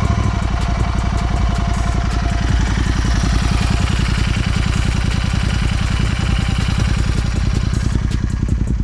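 Royal Enfield Continental GT 650's 648cc parallel-twin engine idling steadily through an AEW aftermarket exhaust, an even beat of exhaust pulses.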